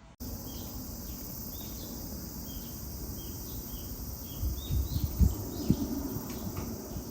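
A bird chirping over and over, short falling notes about twice a second, against steady outdoor background noise. Several low rumbles of wind or handling on the microphone come a little past the middle.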